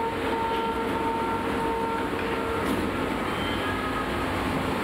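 Shanghai Metro Line 2 train standing at the platform: steady running noise of its onboard equipment, with a steady tone that stops about halfway through.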